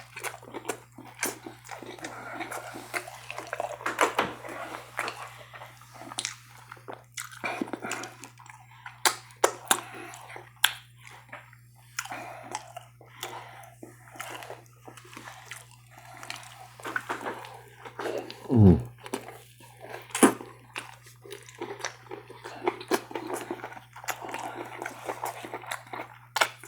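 Close-miked chewing and wet mouth sounds of someone eating eggplant rollatini, with many small smacks and clicks over a steady low hum. About two-thirds of the way through comes a short, loud, falling pitched sound, like a vocal "mm".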